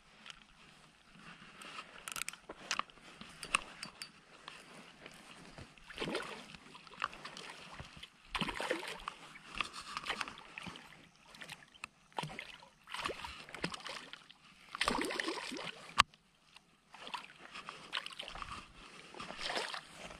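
A hooked tilapia splashing and sloshing at the water's surface in irregular bursts as it is reeled in on a spinning reel, with one sharp click about three-quarters of the way through.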